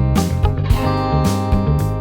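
Instrumental background music with guitar over a moving bass line.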